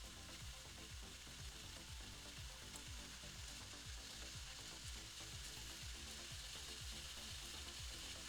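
Faint background music with a steady low beat, under a constant hiss.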